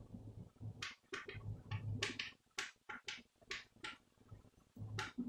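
Chalk on a blackboard: a quick string of about a dozen short scratching strokes and taps as letters and bond lines are drawn.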